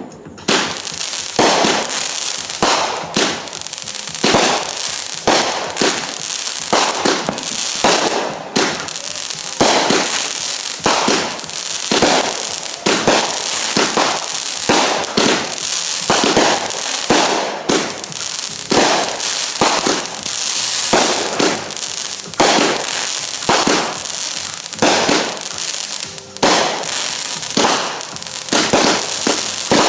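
Consumer fireworks going off in rapid succession: a dense run of launch thumps and aerial bursts with crackle. It starts suddenly, eases briefly about 26 seconds in, then quickens again near the end.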